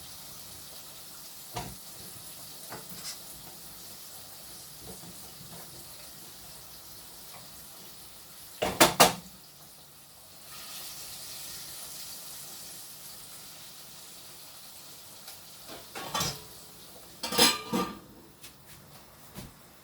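Chicken frying in hot oil with a steady sizzle. Metal pots and utensils clatter sharply, loudest about nine seconds in and twice more near the end.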